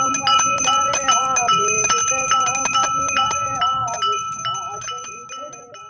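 Small brass puja hand bell rung rapidly and continuously during the aarti, with voices singing along. The sound fades out near the end.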